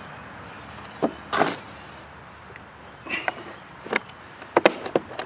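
Plastic drive-belt cover on a self-propelled lawn mower being set back in place and pressed down by hand: a few scattered plastic knocks and clicks, then a quick run of sharp snaps near the end as it seats.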